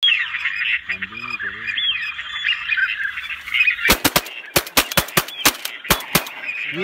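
A flock of waterbirds calling. About four seconds in comes a rapid, irregular run of about ten sharp cracks within two and a half seconds: shotguns fired at ducks flying overhead.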